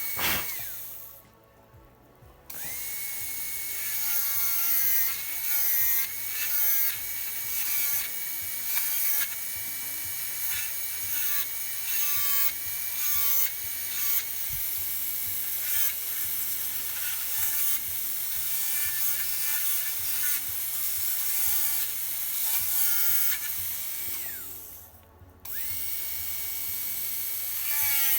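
High-speed dental air-turbine handpiece whining steadily, its pitch dipping briefly again and again as the bur cuts into a molar during cavity preparation. It winds down and stops just after the start and restarts about two seconds later, and does the same once more near the end.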